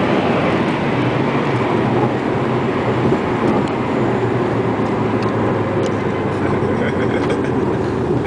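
Car engine and road noise heard from inside the cabin while driving along the runway, a steady drone with a low engine note underneath.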